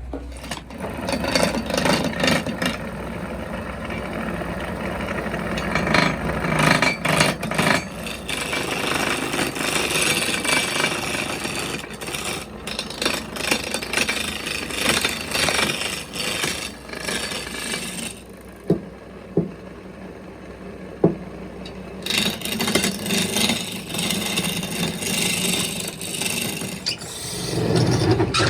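A hand tool scraping and rasping on wood in uneven strokes, pausing for a few seconds about two-thirds of the way through, when a few light knocks are heard, then starting again.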